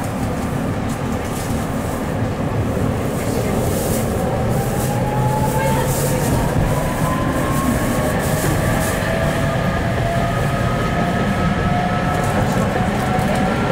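Tatra T3M tram riding, heard from inside the passenger saloon: a low rumble of wheels on rails with rattles, and from about four seconds in a motor whine that rises slowly and steadily in pitch as the tram gathers speed.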